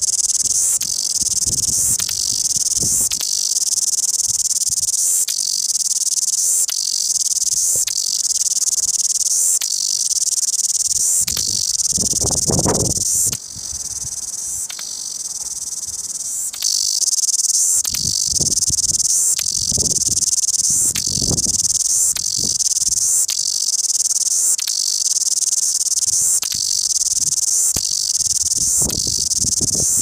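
Cicada singing loudly: a continuous high-pitched buzzing song broken by sharp clicks about once or twice a second. For a few seconds around the middle the song drops in volume, then comes back at full strength, with occasional low rumbles underneath.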